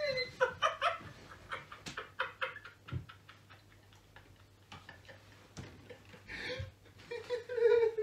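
Two people laughing hysterically in breathless, rapid pulses, swelling near the end into a louder, drawn-out high-pitched laugh.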